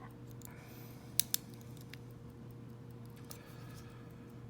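Small metallic clicks of a lock pick and tension wrench working the wafers of a tiny vintage Elgin wafer padlock, with two sharper clicks a little over a second in. A steady low hum runs underneath.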